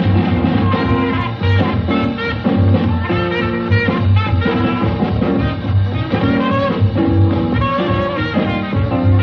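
Swing band playing an instrumental boogie passage: upright bass, drums and trumpet over a steady, driving beat.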